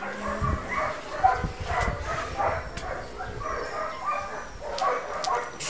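A dog whining and yipping in a quick run of short, high calls, with a low rumble of handling noise on the microphone from about half a second to two seconds in.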